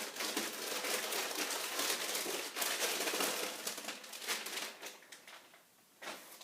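Plastic packaging crinkling and crackling as it is handled and pulled off, dying away after about four seconds into a few light clicks and a soft knock.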